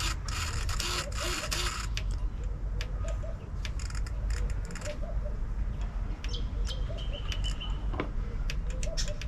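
Scattered clicks and handling noises over a low hum, with a hiss in the first couple of seconds and one steady high-pitched beep lasting about a second and a half past the middle. The RC truck's newly fitted motor is not spinning.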